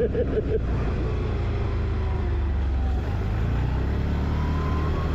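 Quad bike (ATV) engine running steadily while riding, a low drone with a faint whine that rises slowly in pitch near the end.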